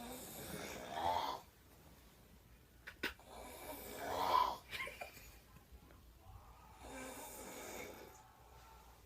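A person snoring: three long snores about three seconds apart, each swelling and then breaking off, with a brief sharp click just before the second.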